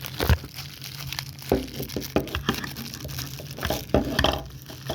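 Crinkling and rustling of packaging, with many short clicks and knocks as the kit's pieces are handled.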